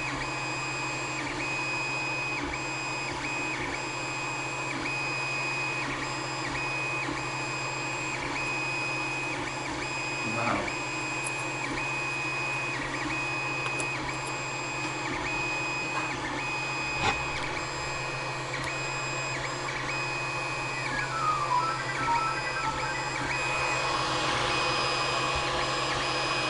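3D printer running a print: a steady high stepper-motor whine that breaks off briefly every second or so as the moves change, over a low fan hum. A short run of falling notes comes about three-quarters of the way in, and the whir grows louder near the end; a couple of light clicks sound about ten and seventeen seconds in.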